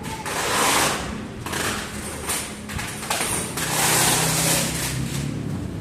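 Several bursts of rustling or scraping noise, each up to about a second long, from something being handled. A low steady hum runs beneath.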